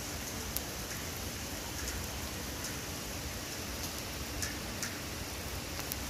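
Steady rain falling, with scattered single drops ticking sharply on nearby surfaces every second or so.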